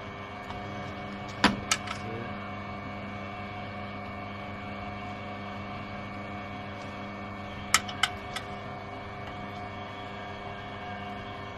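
Peugeot pillar drill's motor running steadily while an 8 mm bit drills a pilot hole in a piece of steel. Two quick groups of three sharp clicks come about a second and a half in and again about six seconds later.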